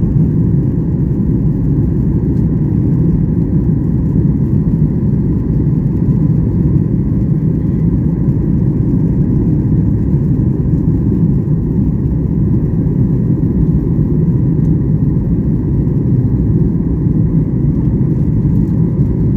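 Steady low roar of engine and air noise inside an airliner cabin.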